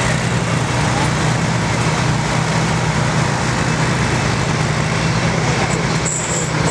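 John Deere tractor engine running steadily under load, pulling a weight-transfer sled.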